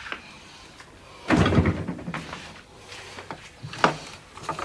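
A cupboard door knocking shut with a dull bang about a second and a half in, then a sharp click near the end.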